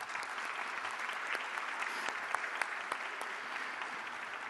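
Audience applauding: many hands clapping together in a steady, dense patter, easing off slightly near the end.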